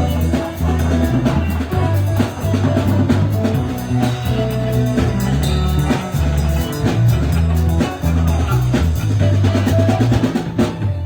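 Live band music without singing: a drum kit keeps a steady beat with bass drum and snare under a moving bass line.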